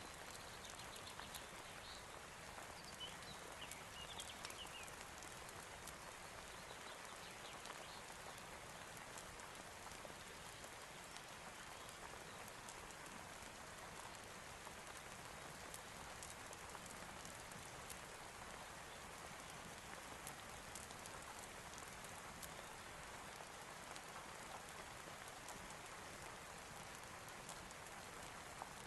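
Soft, steady rain falling, with scattered faint ticks of drops throughout. A few faint high chirps come in the first few seconds.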